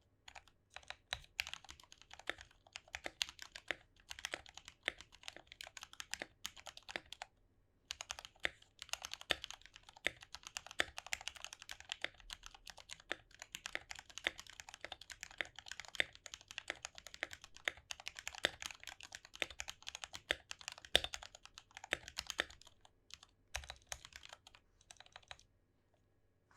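Fast, continuous typing on a 65% mechanical keyboard with lubed Gateron Black linear switches in an acrylic sandwich case. There is a short pause about seven seconds in, and the typing stops near the end.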